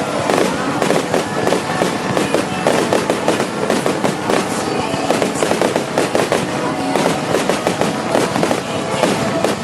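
Aerial fireworks going off in a dense barrage, a rapid continuous crackle of many small bursts.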